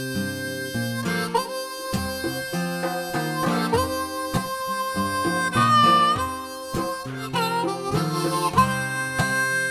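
Instrumental song intro: a harmonica playing sustained and bent notes over plucked acoustic guitar.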